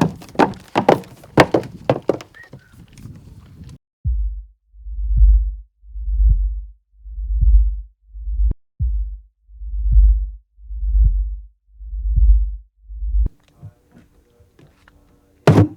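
Deep, muffled heartbeat-like throbbing, about one slow pulse a second, nine in all, cutting in abruptly after a few seconds of sharp clicks and knocks, with one sharp click in the middle. It gives way to a faint hum, then more clatter near the end.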